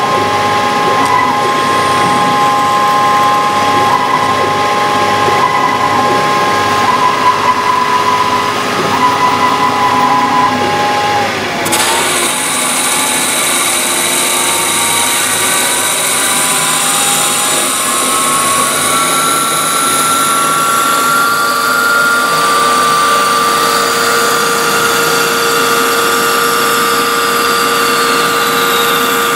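CNC lathe at work with flood coolant. First a drill bores the centre of the spinning knob blank under a steady spindle whine. From about twelve seconds in, a parting tool cuts under constant surface speed, and the spindle whine climbs in pitch as the tool feeds toward the centre and the spindle speeds up, then levels off.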